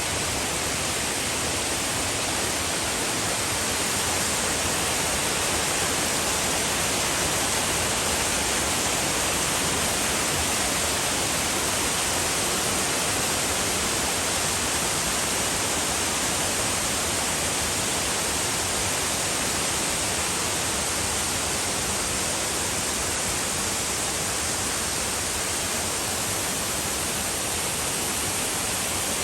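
A 30-metre waterfall pouring down, a steady, unbroken rush of falling water, strongest in the hiss.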